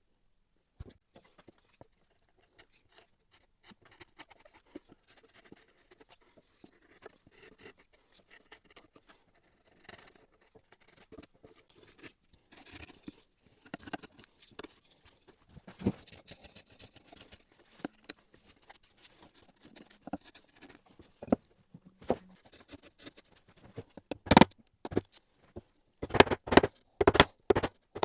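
Scattered small clicks, scrapes and taps of hand work on wood, with a run of louder sharp knocks near the end.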